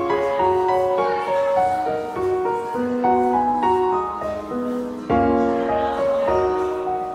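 Instrumental background music: a slow melody of held notes, with a new phrase swelling about five seconds in.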